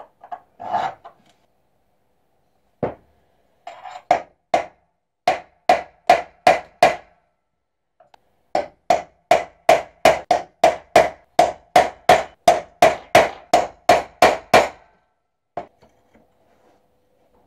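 Small hammer striking a steel punch on a steel knife blank in quick light blows with a short metallic ring, most likely marking the hole positions. A few scattered taps come first, then a steady run of about three blows a second that stops about two seconds before the end.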